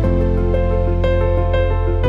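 Background music: a mellow track with sustained keyboard chords over a deep bass, the chord changing near the start and again at the end, with light ticks of percussion.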